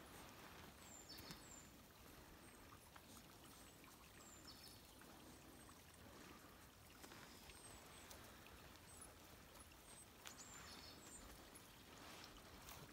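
Faint trickle of a shallow stream, with short high chirps now and then.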